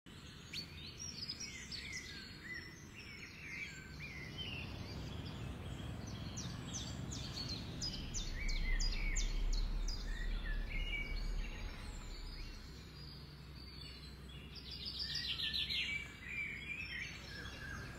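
Several small birds chirping and calling in short, quick notes over a steady background of outdoor noise. A low rumble swells about eight seconds in and fades a few seconds later, and a rapid run of high chirps comes near the end.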